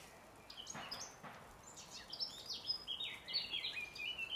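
A songbird singing a rapid run of short, varied high notes, busiest in the second half. About a second in there are two brief noisy sounds.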